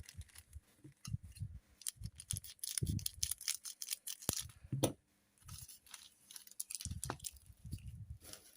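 Scissors snipping open sealed trading-card packs: a string of irregular short snips and clicks, with soft handling knocks between them.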